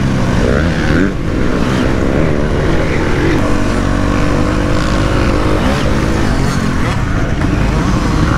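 KTM 250 SX-F motocross bike's single-cylinder four-stroke engine, heard from on the bike while riding, its pitch rising and falling as the throttle is opened and closed, with a brief drop in throttle about a second in.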